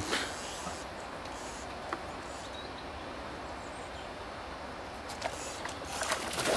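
Steady outdoor hiss of the river, then splashing near the end as a hooked Atlantic salmon thrashes at the surface.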